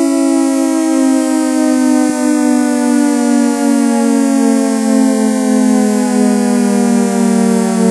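Synthesized ACA Hurricane siren in its 10/12-port combination with echo: a steady, organ-like chord tone that slowly falls in pitch.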